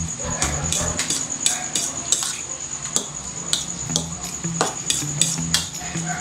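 A fork clinking and scraping against a bowl as egg is beaten into shredded cabbage: a quick, irregular run of sharp clicks.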